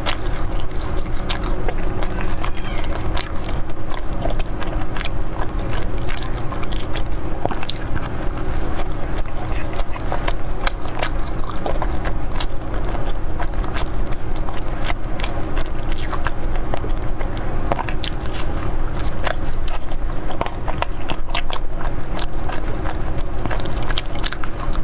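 Close-miked chewing and biting of a soft, crumb-coated roll: wet mouth smacks and many small clicks, over a steady low hum.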